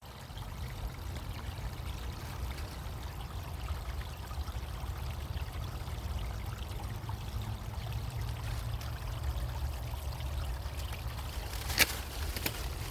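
Creek water running, a steady low rush, with two sharp clicks near the end.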